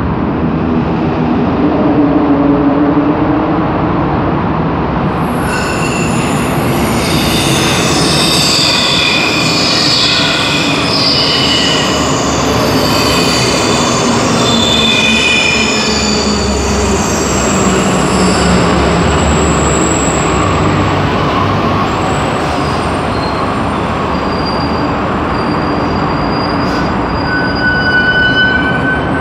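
Santiago Metro train running through an underground station platform: a loud steady rush of the cars going by, with high squealing and whining tones for several seconds in the middle.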